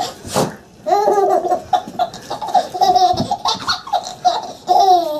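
Baby laughing in repeated high-pitched bursts that rise and fall, starting about a second in, after a brief noisy burst near the start.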